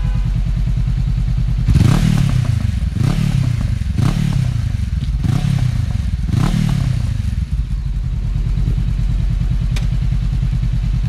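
Honda CB500X's 471cc parallel-twin engine through a Remus aftermarket exhaust, idling, then blipped about five times in quick succession, each rev dropping straight back to idle, before it settles into a steady idle again.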